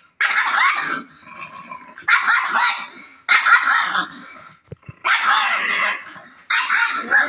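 Pug barking and growling in five short, rough bouts, roughly one every second and a half.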